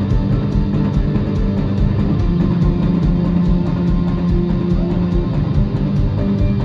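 Live band playing loud rock music through a PA: electric guitar over a drum kit, with a steady beat of cymbal hits and a long held low note in the middle.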